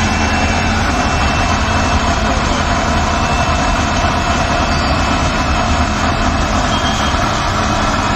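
Electric blender motor running steadily, blending avocado milkshake in a plastic jar.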